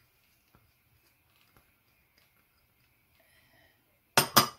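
A mostly quiet stretch with a few faint light ticks, then three sharp knocks in quick succession near the end.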